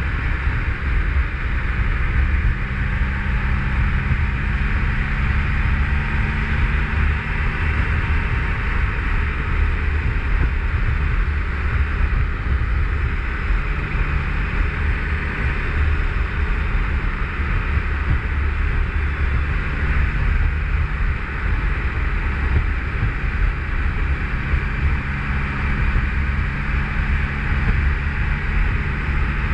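Motorcycle at steady riding speed: heavy wind rush on the microphone and road noise, with the engine's steady drone coming and going underneath.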